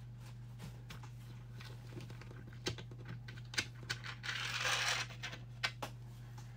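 Hands handling a small RC crawler wheel with its rubber tire: scattered light clicks and taps, with a brief rustling scrape a little past the middle.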